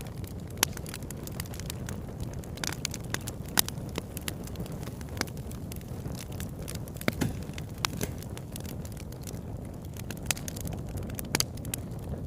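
Wood campfire burning: a steady low rumble of flames with irregular crackles and pops of burning wood, a few sharper pops standing out.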